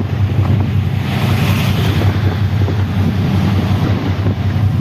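Boat engine running with a steady low hum, under heavy wind noise on the microphone and the wash of the sea.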